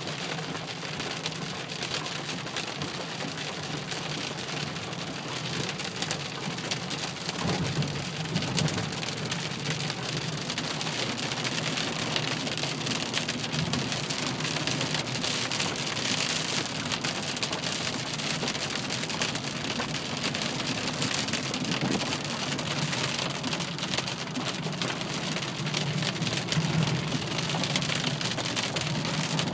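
Rain hitting a car's roof and windshield as it drives, a dense spray of drop clicks over the car's low steady hum, growing a little heavier after the first several seconds.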